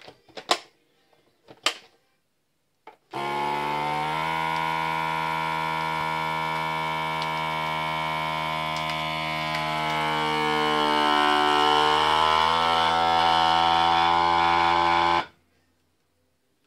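SilverCrest vacuum sealer: two sharp clicks as its lid is pressed shut, then its pump runs with a steady hum for about twelve seconds, drawing the air out of the vacuum bag. The hum grows slightly louder as the bag pulls tight, then cuts off suddenly.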